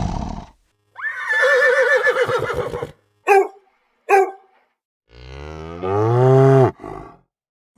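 A string of separate animal calls with short silences between them: a warbling, quavering horse whinny, then two short calls, then a long, low cow moo that rises in pitch.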